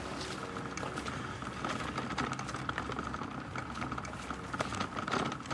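Bicycle riding along a rough dirt towpath: the tyres rolling with irregular knocks and rattles from the bumps, over a steady high whine.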